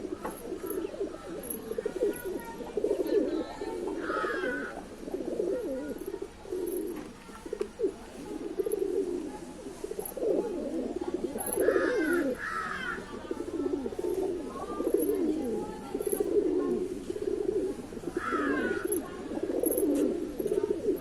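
A flock of domestic pigeons cooing continuously, their low throaty calls overlapping one another. A few short higher chirps cut in now and then.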